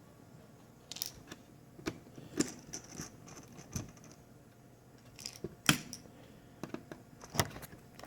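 Scattered light clicks and taps of small hard parts being handled on a laptop's plastic chassis, irregular and about a dozen in all, the loudest a little before six seconds in.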